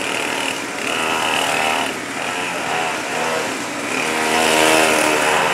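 Small-engine mini GP motorcycles revving up and easing off repeatedly as they ride, with a high, buzzy engine note rising and falling in pitch.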